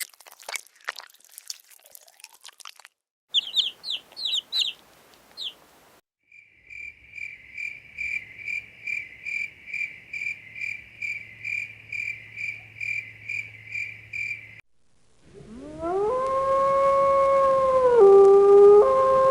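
A run of short animal-sound clips: crunching clicks, a few quick high chirps, then a steady train of high-pitched calls at about two a second for some eight seconds. Near the end a dog howls, one long howl that rises at the start and drops in pitch about three seconds in.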